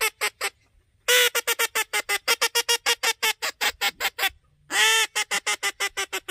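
Duck Commander polycarbonate teal call blown to sound like a teal: a longer note followed by a fast run of short, high quacks at about six a second. After a brief pause about four seconds in, a second run starts the same way.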